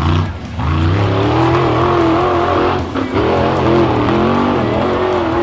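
Rock bouncer race buggy engine revving hard, its pitch wavering up and down with the throttle, with a brief dip about three seconds in.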